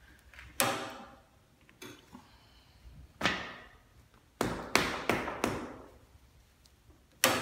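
A series of about eight sharp knocks and taps at uneven intervals, each ringing out briefly, from hard objects being handled around a motorcycle handlebar while a grip is being fitted.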